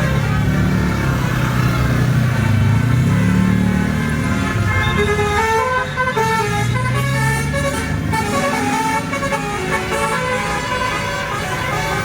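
A bus's telolet basuri multi-tone horn plays a tune of short held notes that change every fraction of a second, clearest in the second half. Under it runs a loud low rumble that rises and falls.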